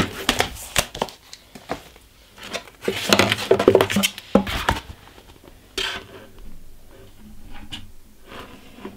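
Plastic document folders and small items being handled in a wooden desk drawer: rustling, knocks and light clattering, in a busy burst at the start and another about three to four seconds in, then a few single taps.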